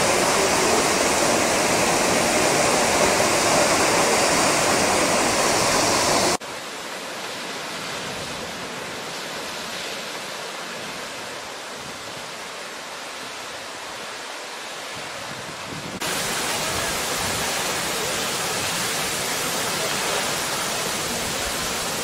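Waterfall's steady rush of falling water. The level drops suddenly about six seconds in and jumps back up about sixteen seconds in.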